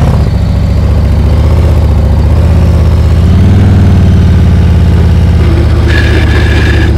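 Heavy touring motorcycle's V-twin engine running at low, steady revs under light throttle through a slow full-lock U-turn, swelling slightly a few seconds in; the steady power to the rear wheel is what keeps the leaning bike from falling at walking speed.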